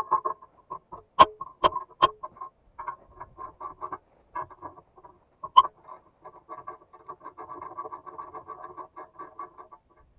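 Steel tools clinking and knocking against the steel links of a harvester's bogie track: a string of small ringing metallic taps, with three sharp strikes about a second in and another near the middle. Toward the end comes a faster, denser rattle of clicks.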